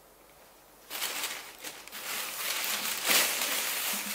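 Thin plastic produce bag rustling and crinkling as it is handled, starting about a second in and loudest around the middle.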